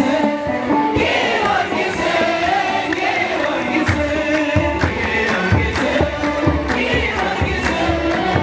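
Music with a group of voices singing a chant-like melody; low drum strokes join about four seconds in.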